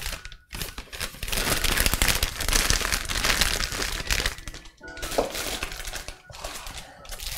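Plastic meat packaging crinkling and rustling in irregular bursts as it is handled, with short pauses in between.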